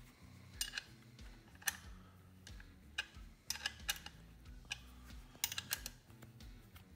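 Irregular metallic clicks and clinks of a wrench working a bolt on a motorcycle front-fork clamp while the bolt is tightened to lock the fork in place. There are about a dozen sharp ticks, some in quick clusters.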